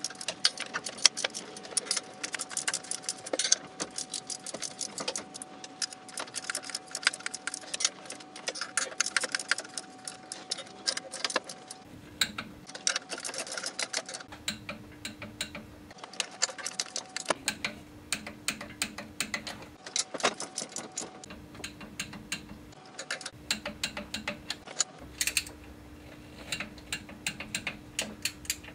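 Socket wrench ratchet clicking in rapid strokes as clutch pressure-plate bolts are run down and torqued to 14 ft-lb. The clicking is continuous at first, then comes in short runs with brief pauses after about twelve seconds.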